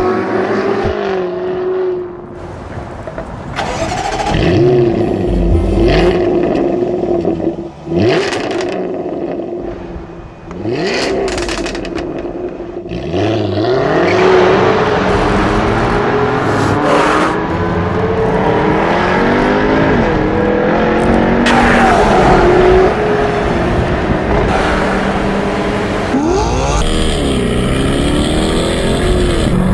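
Jaguar F-Type S engine and exhaust revved again and again, the pitch sweeping up and falling back with each blip of the throttle. Sharp cracks come at several points between the revs.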